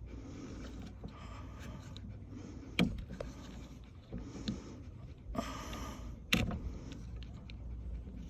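Small hard plastic clicks and soft handling noise as a screwdriver pries at the locking tab of a car door lock switch's wiring connector, with two sharper clicks standing out.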